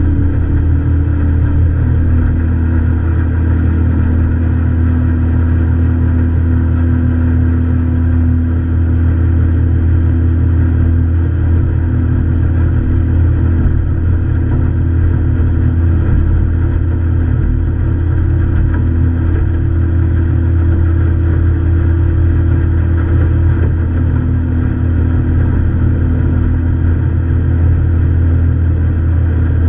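Tiller-steered outboard motor on a small aluminium boat running steadily under way, a constant low drone that holds the same speed throughout.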